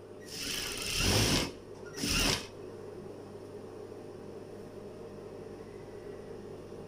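Sewing machine stitching stretch fabric in two short runs, the first about a second long and the second briefly. A steady low hum continues between and after the runs.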